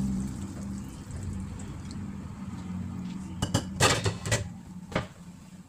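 Coconut milk pouring from a ceramic bowl into a frying pan of crab and vegetables, over a low steady hum. About three and a half seconds in comes a quick cluster of dish clinks and knocks, with one more knock about a second later.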